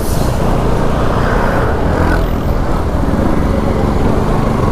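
Motorcycle on the move, its engine running steadily under rushing wind and road noise, heard from a microphone on the bike.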